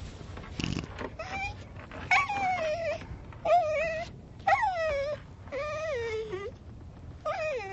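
Dog-like whimpering from a costumed werewolf character: a string of about six short whines, each falling and wavering in pitch, as of a sick, miserable dog.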